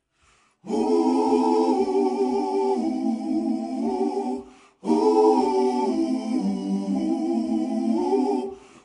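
A cappella humming: several voices holding sustained chords that move in steps, in two phrases of about four seconds each with a brief break between them.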